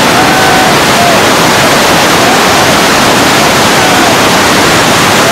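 Muddy floodwater rushing through bridge arches: a loud, steady rush of water.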